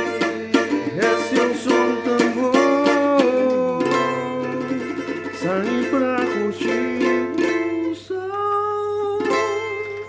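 Music on a small, bright plucked string instrument like a ukulele, with quick plucked notes and a melody line that slides between pitches. It stops at the very end.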